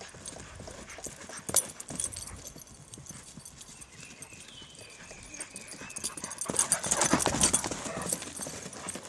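A Great Dane's footfalls thudding on a dry lawn and bare dirt as it runs at full gallop, loudest about seven seconds in as it passes close by.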